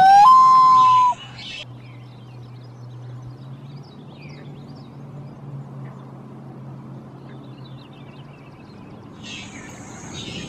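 Common loon calling loudly once, about a second long: a quick rising note that levels off into a clear held tone, then stops. After it there is only a faint low hum with a few soft, high chirps.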